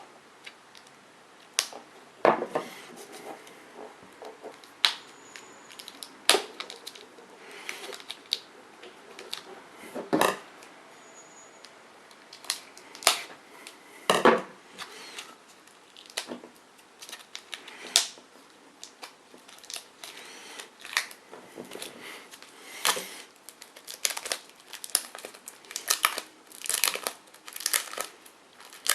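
Packaging crinkling and tearing as it is unwrapped by hand: irregular crackles and short rips, coming faster and denser near the end.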